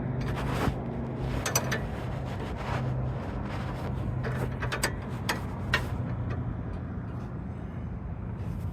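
Hand tools working on a car's sway bar end link: scattered sharp clicks and taps, about eight in the first six seconds and then fewer, over a steady low hum.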